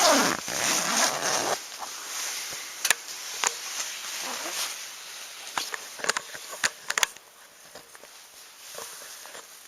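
A passing vehicle's sound, falling in pitch, fades out in the first second and a half. After it come scattered light clicks and knocks, clustered about three seconds in and again around six to seven seconds.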